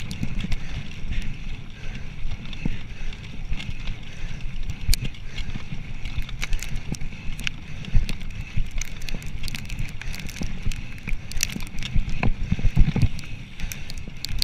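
Mountain bike rolling fast over a dirt forest trail: a steady low rumble of tyres and air, with frequent sharp clicks and rattles from the bike jolting over bumps.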